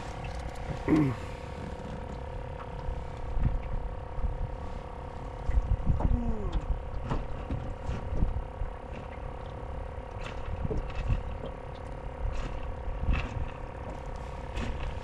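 Light clicks and small rattles of fishing tackle being handled as a hook is baited, over a steady two-pitched hum. Two brief falling sounds come about a second in and again about six seconds in.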